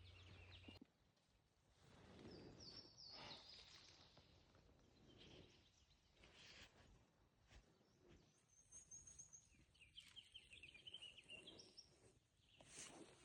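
Near-quiet outdoor ambience with faint bird chirps and short trills: a few high notes about two and a half seconds in, and a brief trill around nine to eleven seconds.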